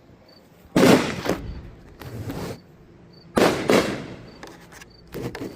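Aerial fireworks going off: a series of sudden loud bangs, about five in all and irregularly spaced, each trailing off briefly.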